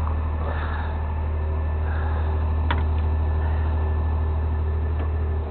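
Truck engine running steadily with a low drone, and a single sharp click about two and a half seconds in.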